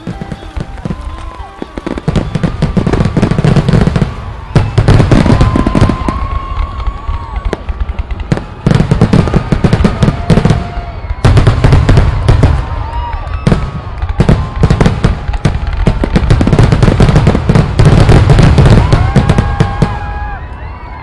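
Fireworks display: dense crackling and repeated deep booms coming in waves, starting about two seconds in and fading near the end.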